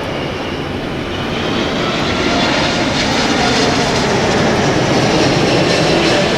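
Boeing 777's jet engines on final approach, a rumble with a high whine that grows steadily louder as the airliner nears.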